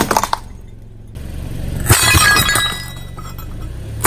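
Glazed ceramic ornaments cracking and crunching under a car tyre. The breakage comes as dense crackling at the start, then a fresh burst of cracking about two seconds in that dies away.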